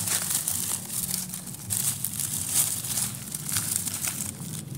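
Leaves and undergrowth rustling and crackling as a hand pushes through the plants, in uneven rustles.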